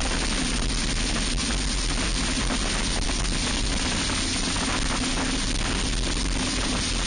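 Onboard sound of a racing kart at speed: its Briggs & Stratton Animal single-cylinder four-stroke engine running at steady high revs, under a loud, even rush of wind and road noise.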